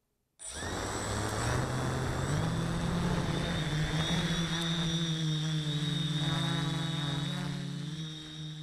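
Honey Badger FPV quadcopter's electric motors and propellers, heard through its onboard camera, start abruptly about half a second in and run with a buzzing hum and a steady high whine. The hum rises in pitch a couple of seconds in as the quad lifts off the grass.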